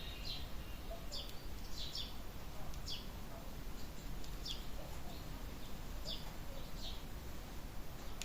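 A bird chirping faintly in the background: short, high, downward-sweeping chirps, roughly one a second, over a low steady hum.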